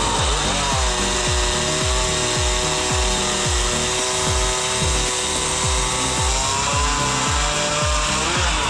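Background music with a heavy, regular beat over a power saw cutting wood. The saw's engine pitch drops as it goes into the cut, holds steady, and rises again near the end as it comes free.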